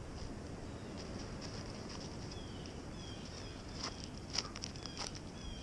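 Footsteps crunching on snow at a steady walking pace, a few sharper steps about four seconds in, with wind rumbling on the microphone.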